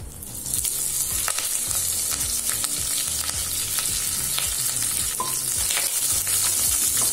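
Fresh curry leaves sizzling in hot oil with cumin seeds and dried red chillies in a kadai as a tempering. The hiss jumps up about half a second in as the leaves hit the oil and stays loud, with scattered pops throughout. A spatula stirs the pan near the end.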